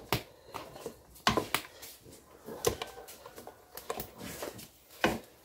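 Wooden spoon stirring a pot of thick green-corn porridge, knocking and scraping irregularly against the aluminium pot's side, about six sharp knocks.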